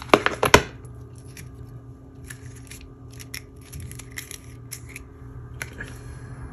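Nail-foil packaging being handled: a quick burst of sharp crackling clicks in the first half second, then scattered faint clicks and rustles.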